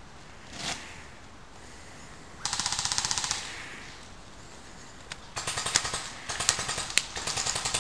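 Airsoft guns firing full-auto: one rapid, evenly spaced rattling burst of about a second a little over two seconds in, then from about halfway through a run of overlapping bursts and single sharp cracks.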